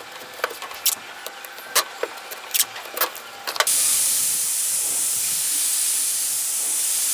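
A few sharp taps and clicks, then a steady, loud hiss of a pressurised jet that starts suddenly about three and a half seconds in and holds.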